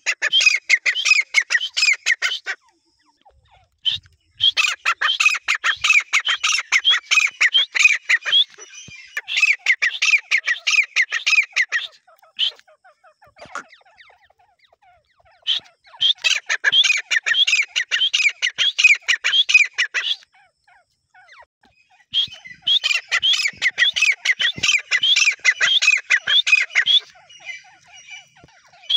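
Grey francolin calling in five bouts of rapid repeated notes, each lasting a few seconds, with short pauses between bouts.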